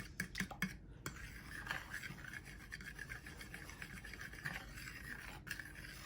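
A kitchen utensil scraping and rubbing against a container, a steady rasping scrape with small clicks.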